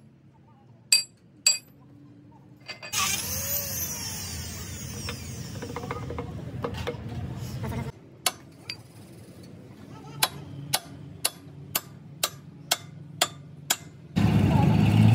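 Hammer blows on a steel pin being driven into a Cat motor grader's bracket: two sharp metallic strikes about a second in, then a regular run of strikes about two a second in the second half. Between them come a few seconds of steady noise, and near the end a running engine cuts in loudly.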